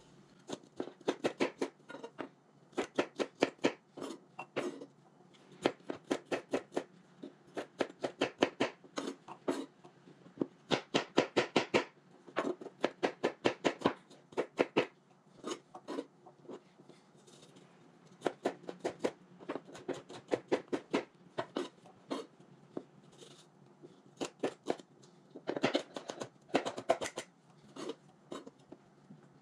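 Chef's knife dicing red bell pepper on a white plastic cutting board: runs of quick sharp taps, several a second, broken by short pauses.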